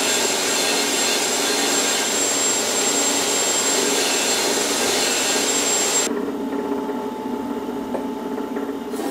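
Belt grinder grinding a pattern-welded steel sword blade: a loud, steady rushing hiss with a thin high whine. About six seconds in it cuts off abruptly to a duller, quieter machine hum.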